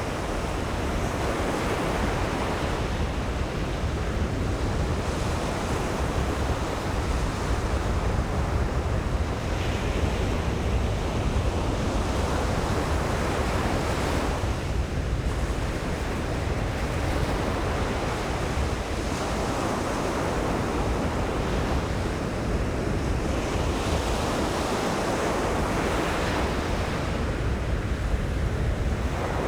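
Ocean surf breaking and washing up a beach in repeated swells that rise and fall every few seconds, with wind rumbling on the microphone.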